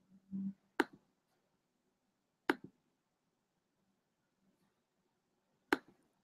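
Three sharp computer mouse clicks, about a second in, two and a half seconds in and near the end; the second is followed by a softer one.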